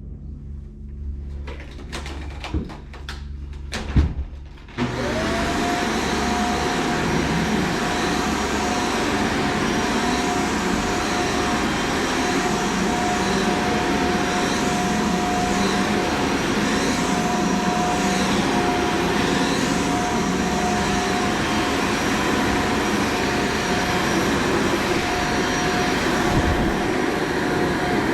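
Vacuum cleaner switched on about five seconds in, its motor spinning up to a steady whine and running on, preceded by a few knocks and clicks.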